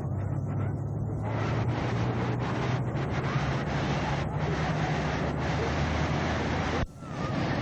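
Wind blowing on the camcorder microphone over the rush of breaking surf, with a steady low hum underneath. The sound drops out briefly near the end and comes back without the hum.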